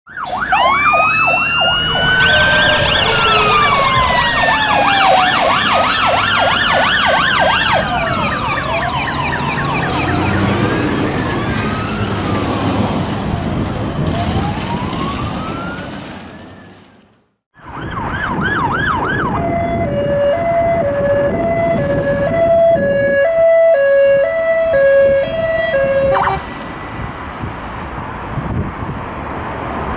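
Several emergency-vehicle sirens sounding over one another, with wailing and yelping sweeps rising and falling, fading out about halfway through. Then a single siren gives a quick yelp and changes to a two-tone hi-lo pattern, alternating about twice a second, which stops a few seconds before the end and leaves road traffic noise.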